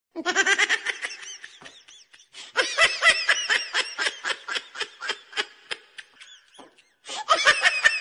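"Troll laughing" meme sound effect: a rapid, cackling laugh in quick ha-ha pulses, in three bouts with a short lull about two seconds in and a brief break near the end.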